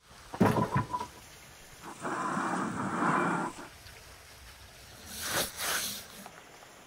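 A heavy stone pestle knocking a few times in a stone mortar, then grinding in it with a rough, steady scraping for about a second and a half. Near the end, a brief rasp swells up and dies away.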